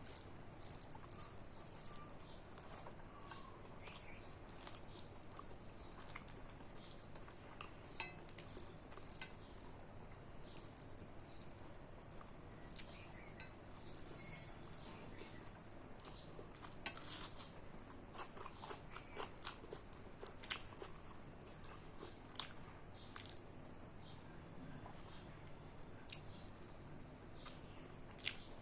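A person chewing and eating a rice meal close to the microphone: a steady run of small wet mouth clicks and smacks, with a few sharper clicks now and then.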